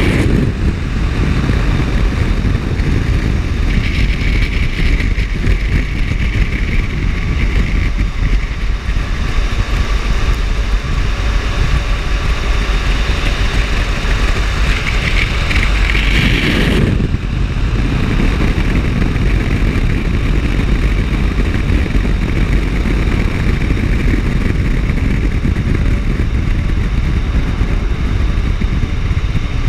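Automatic car wash gantry's dryer blowers running: a loud, steady rush of blown air over the car, buffeting the microphone.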